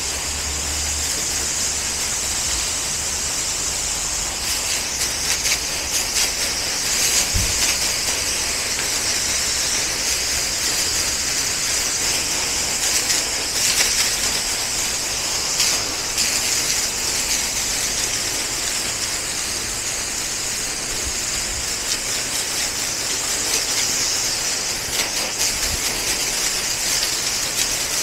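Pressure-washer wand spraying a high-pressure jet of water onto concrete, a steady high-pitched hiss.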